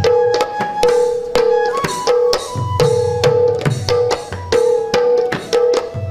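Instrumental dance music: a hand drum playing a quick, steady rhythm under a melody that keeps returning to one held note.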